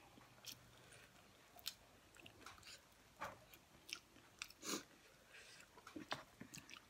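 Faint close-up chewing and lip-smacking of people eating chicken curry and rice by hand, with scattered small mouth clicks and one louder wet smack a little past halfway.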